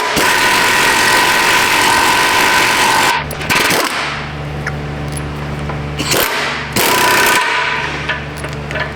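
A power tool runs in two bursts, a long one of about three seconds and a short one near the end, over a steady low hum, as an exhaust pipe is being stretched to fit.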